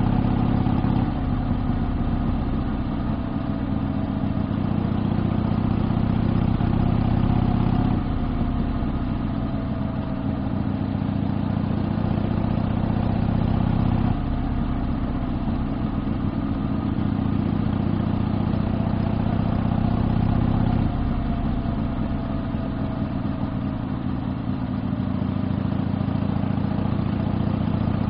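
Exhaust of a 1972 Harley-Davidson Sportster XLCH's 1000 cc V-twin under way on the road. It runs steadily, and four times it drops off suddenly and then builds back up.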